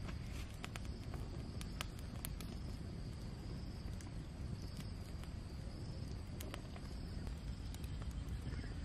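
Wood campfire crackling with scattered sharp pops over a steady chorus of crickets.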